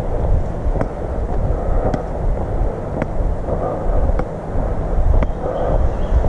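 Wind buffeting a head-mounted action camera's microphone as a steady low rumble, with footsteps about twice a second at a walking pace.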